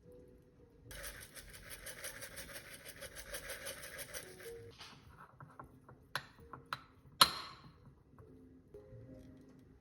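Soft background music under a rapid rhythmic scraping that lasts about four seconds. It is followed by a few clicks and one sharp clink about seven seconds in, the loudest sound.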